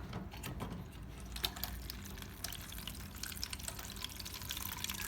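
Water running into a Samsung washing machine's drum as it fills: a faint splashing patter that grows about a second and a half in, over a low steady hum.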